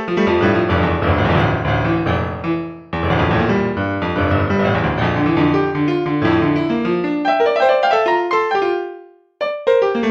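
Piano music: a melody over chords, with short breaks about three seconds in and near the end.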